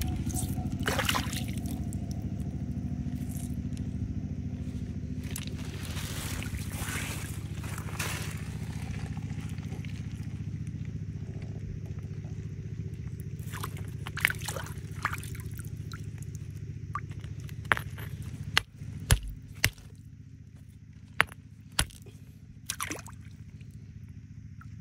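Stones clicking and scraping as they are picked up and handled, sharp clicks scattered through the second half. Under them runs a steady low mechanical hum, like an engine running, that drops away about three-quarters of the way through.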